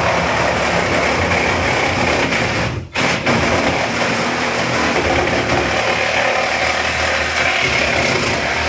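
Cordless reciprocating saw running and cutting into a refrigerator's cabinet. It stops briefly about three seconds in, then starts again.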